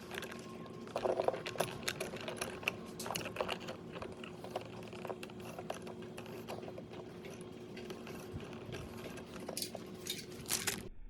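Irregular small clicks, taps and rattles of hands working on a smart light switch and its wiring, over a steady low hum. The sounds stop abruptly near the end.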